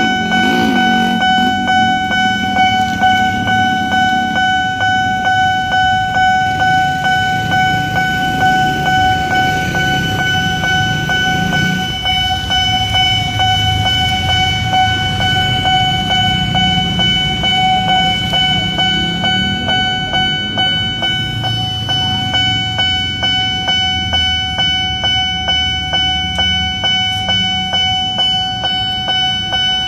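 Railway level-crossing warning alarm sounding from its loudspeaker: a steady electronic bell tone pulsing about twice a second while the barrier arm is lowered. Motorbike engines run underneath.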